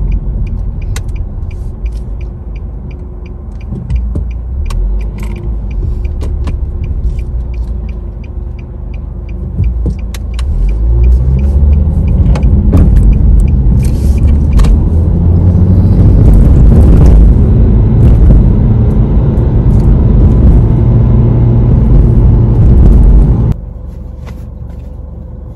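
Car being driven, heard from inside the cabin: a steady low engine and road rumble, with a regular ticking over roughly the first ten seconds. The rumble grows louder from about ten seconds in and drops off suddenly near the end.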